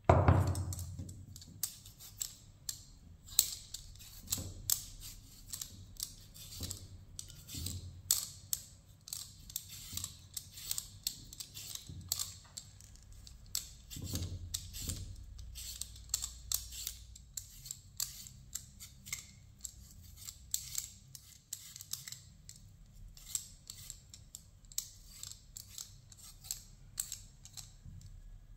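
A vegetable peeler scraping down potatoes in quick, crisp strokes, one or two a second, skin peeling off in strips. A ceramic bowl knocks down onto a wooden board at the start, and there are a few duller knocks of potato against bowl along the way.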